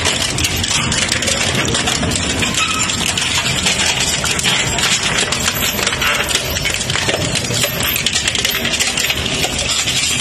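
Twin-shaft shredder's toothed steel rotors tearing through scrap steel. A dense, continuous metallic clattering and crunching runs over the machine's steady running.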